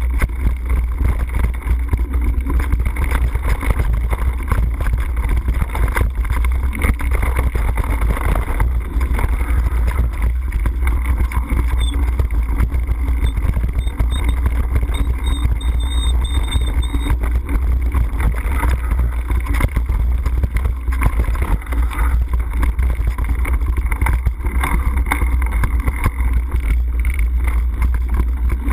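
Wind rumbling over an action camera's microphone on a fast mountain-bike descent, mixed with the rattle and rolling of knobby tyres over dirt, roots and gravel.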